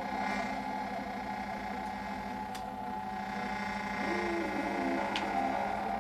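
Melodica holding a sustained reedy chord, with a brief run of short lower notes about four seconds in and a couple of faint clicks.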